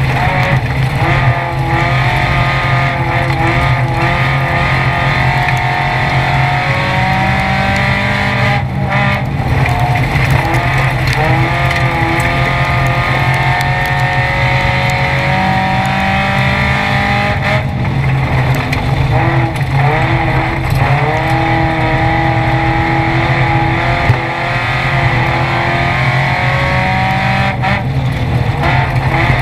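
Mitsubishi Eclipse race car's engine at full racing load, heard from inside the cabin. The engine climbs and falls in pitch, with a brief lift off the throttle about every nine seconds, over steady road and wind noise.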